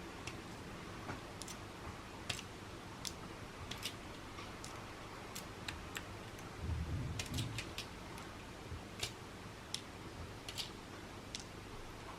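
Small steel bearing balls clicking faintly and irregularly, a little more than once a second, as they are fed one by one into the ball track of an HGR20 linear guide carriage. A brief soft low sound about seven seconds in.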